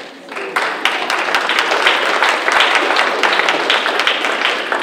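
Audience applauding, building quickly within the first half second to a steady, dense clapping.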